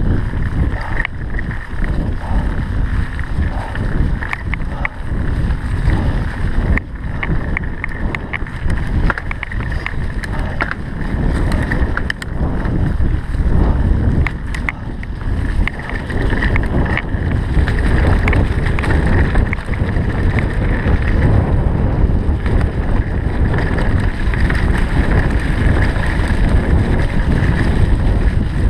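Mountain bike riding down a rough dirt singletrack: wind buffeting the microphone over a constant rumble of tyres on the trail, with frequent sharp knocks and rattles from the bike.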